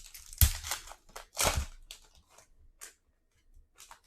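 A trading card pack wrapper being torn open and crinkled. There is a sharp crackle about half a second in and a longer one around a second and a half, then fainter rustles as the cards come out.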